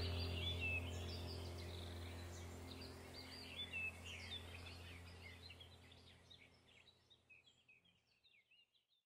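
Birdsong, many quick chirping calls, over a low steady hum in a background soundtrack, fading out gradually to silence near the end.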